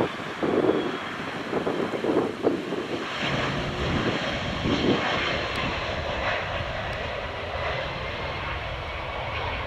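Jet engines of an Airbus A330 MRTT tanker landing, a continuous rush of jet noise, uneven for the first few seconds and then steady.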